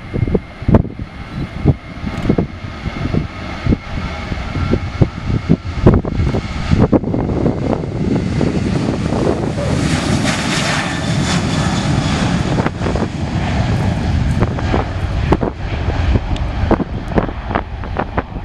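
Boeing 737-800 jet engines at takeoff power during the takeoff roll, building to their loudest with a high whine as the plane passes close by about halfway through. Gusts of wind thump on the microphone throughout.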